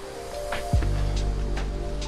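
Background music: sustained chords over a bass line, with a deep falling bass hit under a second in that leads into a heavier, sustained bass.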